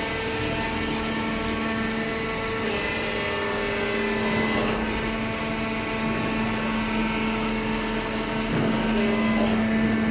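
Industrial cardboard baler running, its motor giving a steady hum with a few small shifts in pitch.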